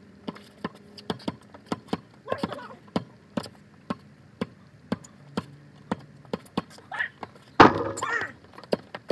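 Sharp taps or slaps repeating evenly, about three a second, with a loud shout or laugh about three-quarters of the way in.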